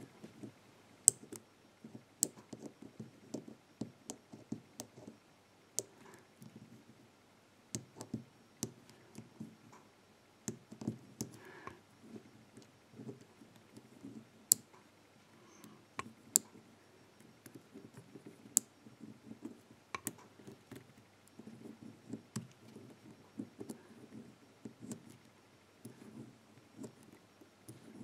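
Small irregular clicks from the number wheels of a four-wheel combination padlock being turned by thumb, with faint handling and scraping as a thin feeler gauge probes the wheels through the gap in the housing.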